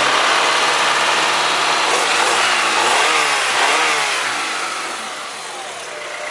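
1998 Honda Accord engine running with newly fitted exhaust headers, revved up and down several times in quick blips, then settling back toward idle near the end.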